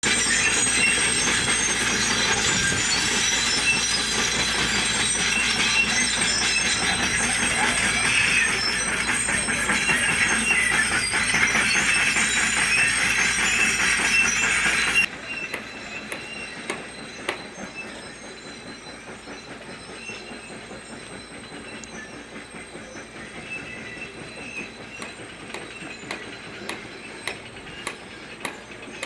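Excavator (digger) making a loud, grinding metallic squeal, a noise the uploader doesn't think a digger is supposed to make. About halfway through it drops suddenly to a much quieter level, with regular sharp clicks.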